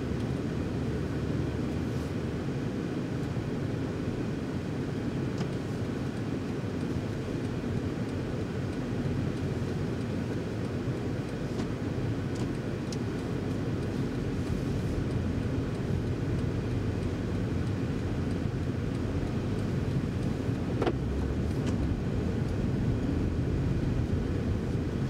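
Cabin sound of a BMW M340i Touring's 3.0-litre inline-six at low speed, a steady low rumble that grows a little louder as the car speeds up. A few light clicks, the clearest near the end.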